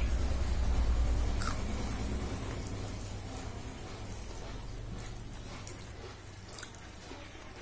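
A person eating by hand, with chewing and short, wet mouth clicks scattered through. Under it runs a low rumble that is loudest about a second in and fades away over the next few seconds.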